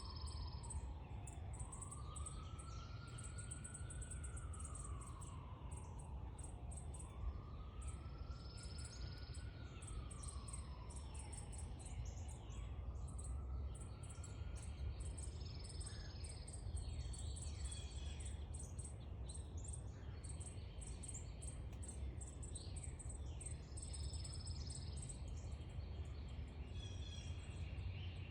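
Sparrows chirping: many short, high chirps and quick falling notes, over a steady low rumble. In the first half a faint wail slowly rises and falls three times.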